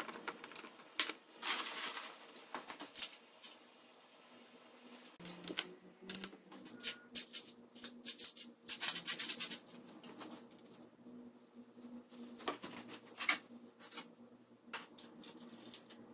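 Irregular clicks, taps and short scraping rattles of small parts being handled on a workbench during a hand-built model build, with a denser rattle about nine seconds in. A faint steady hum sets in about five seconds in.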